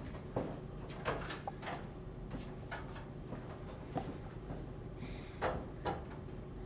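Footsteps on a hard floor, then a swinging wooden door being pushed open and falling shut, with two louder knocks near the end.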